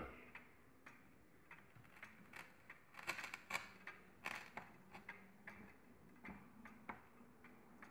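Faint, uneven ticking of an 1882 Ansonia wall clock's escapement. The case has been tilted off plumb, so the clock is out of beat, ticking irregularly before it stops.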